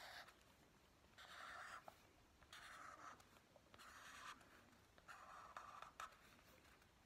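Sharpie permanent marker drawn across paper, faintly, in about four separate strokes of under a second each, with short pauses between.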